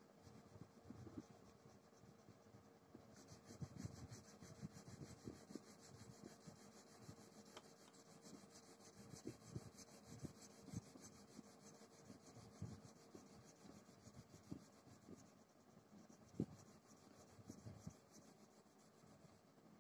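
Faint scratching of a crayon rubbed back and forth on paper in quick, irregular colouring strokes.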